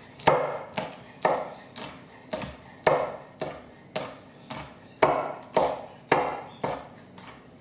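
Knife chopping on a cutting board in a steady rhythm, about two sharp chops a second.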